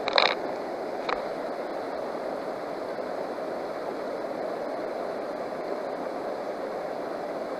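River water rushing steadily at the gravel bar, with a short sharp sound right at the start and a faint click about a second in while water is swirled in a plastic gold pan.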